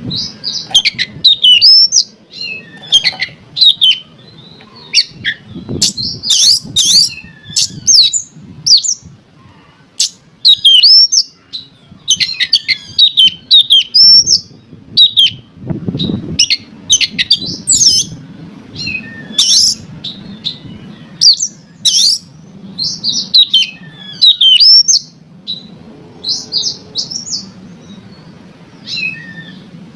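Oriental magpie-robin (kacer) singing a fast, varied run of sharp whistles and chirps with short pauses, thinning out over the last few seconds: the kind of song played to rouse a caged kacer into singing.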